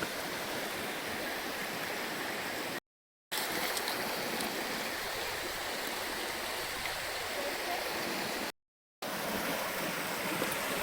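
Stream water rushing steadily, a continuous even hiss of running water. The sound drops out completely twice for about half a second.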